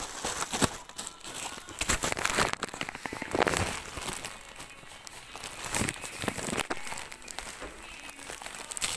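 Plastic wrapping crinkling as packs of disposable plastic cups are handled and loaded into a wire shopping trolley, with irregular clicks and knocks.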